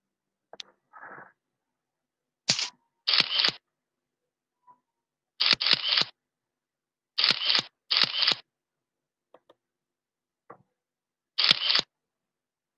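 A series of short, dry noises, mostly in pairs, separated by silence: about seven fairly loud bursts of roughly a third of a second each, plus a few faint ticks.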